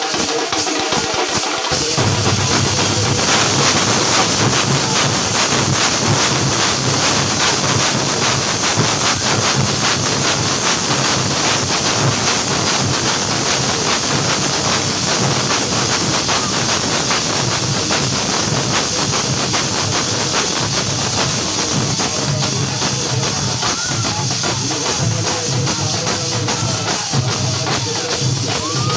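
Loud festival percussion ensemble playing: dense, continuous drumming with cymbals ringing over it, amid a crowd.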